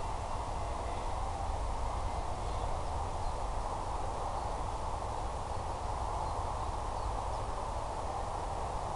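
Steady, even rushing noise with no clear tones, knocks or changes, strongest in the middle range over a low rumble.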